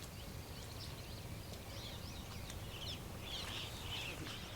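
Birds chirping faintly in short, scattered calls, a little busier near the end, over a steady low background rumble.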